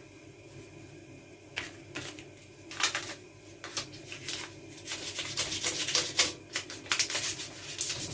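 Light rubbing with an abrasive over the old metal of a Raleigh Burner BMX, taking off surface dust and rust. Scattered scrubbing strokes and small clicks start about a second and a half in and get quicker and busier in the second half.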